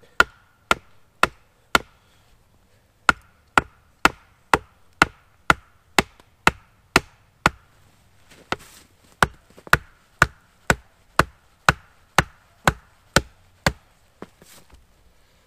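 A small axe striking wood in steady, evenly spaced blows, about two a second. The blows come in three runs broken by short pauses, and each strike carries a brief wooden ring.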